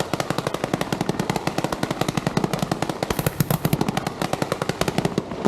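A string of firecrackers going off in a rapid, continuous rattle of sharp bangs, more than a dozen a second.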